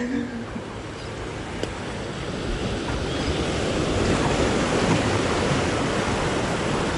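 Sea waves washing and splashing against concrete tetrapod breakwater blocks, a steady hiss of surf that grows louder about halfway through.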